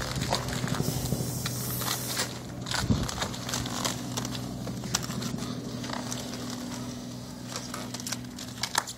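Matte grey vinyl wrap film being peeled by hand off a car door's paint, crackling and crinkling as it pulls away and bunches up, over a steady low hum.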